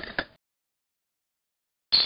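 A dense rattling clatter that cuts off abruptly into total silence, with another burst of clatter starting near the end.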